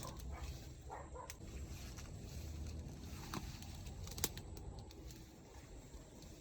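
Outdoor ambience with a steady low rumble, scattered faint rustling and a few short clicks, the sharpest about four seconds in.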